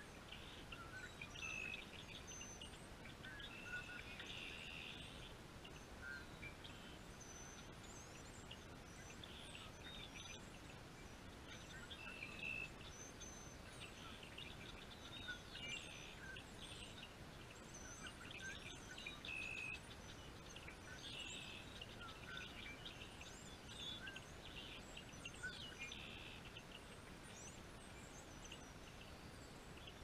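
Faint songbirds chirping, short high notes repeating every second or two, over a steady outdoor hiss.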